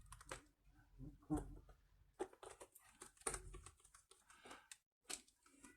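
Near silence with a few faint, scattered clicks and taps from handling a laptop's plastic case and parts.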